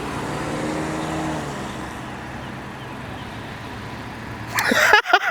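Car engine idling steadily in stopped traffic. A short, loud burst of sound arrives near the end.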